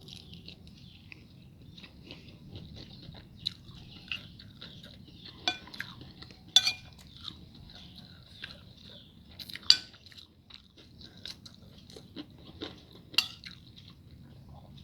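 Food being chewed and crunched, with a few sharp clinks against a plate.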